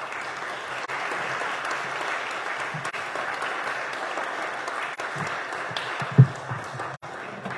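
Audience applauding steadily, then thinning out near the end. A single dull thump comes about six seconds in.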